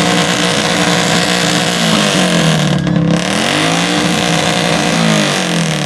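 Car engine being revved in long swells, its pitch rising and falling about twice, over a steady hiss of exhaust and engine noise.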